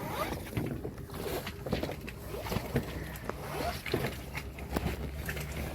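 Halyard line being hauled through the mast and deck hardware of a sailboat: a run of irregular clicks, knocks and rubbing over a low steady hum, with faint voices in the background.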